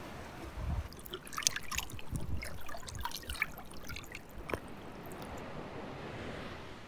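Surf washing up the beach and draining back, with a dense fizzing crackle of water through sand and coral rubble for a few seconds before it settles to a steady hiss.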